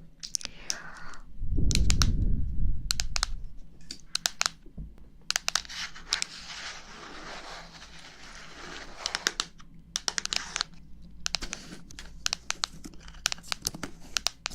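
Close ASMR ear-cleaning sounds: crinkling and scratching with many sharp clicks, a low rumble about two seconds in, and a soft hiss through the middle.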